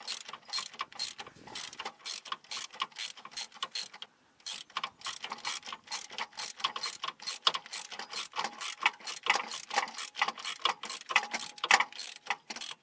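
Hand socket ratchet clicking rapidly as a starter mounting bolt is backed out, with a brief pause about four seconds in.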